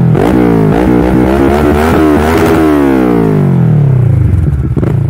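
Kawasaki Versys 650 parallel-twin engine through a Mivv Black slip-on exhaust, revving up in several quick rises, then the revs fall away slowly and the sound fades out near the end.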